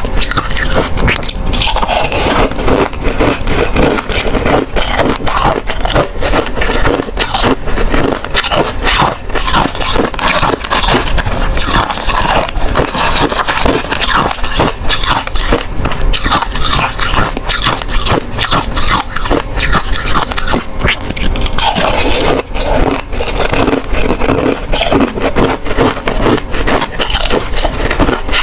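Ice cubes crunched and chewed up close, a loud, continuous run of sharp cracking and crunching.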